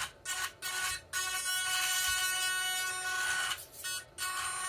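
Whine of a toy-grade RC drift car's electric motor and gears as it is driven: a few short throttle blips, then a steady run of about two and a half seconds, then more throttle near the end.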